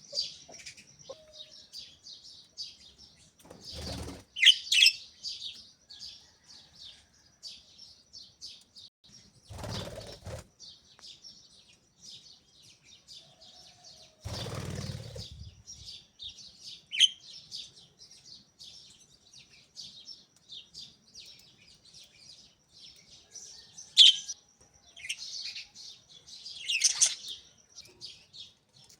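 Budgerigars chattering in a steady run of short, high chirps, with a few louder calls standing out. Three brief bursts of wing flapping come about four, ten and fifteen seconds in.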